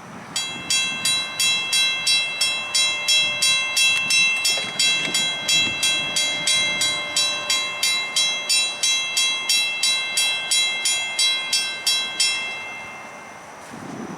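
Railroad crossing bell ringing rapidly, about three strikes a second, with a ringing metallic tone. It stops suddenly about twelve seconds in, the sign that the crossing gates are fully lowered.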